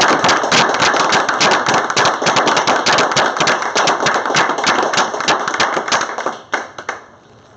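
Small audience applauding, a dense patter of hand claps that dies away about six and a half seconds in with a few last claps.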